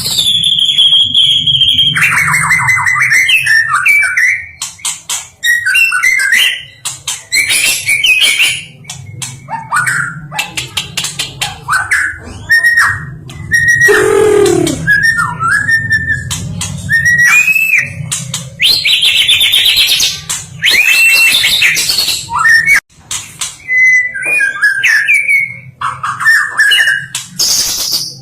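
White-rumped shama (murai batu, the 'stone magpie') singing a long, varied song. Loud whistled phrases, pitch slurs and rapid chattering notes follow one another, with one long note falling steeply in pitch about halfway through. A faint low hum runs underneath.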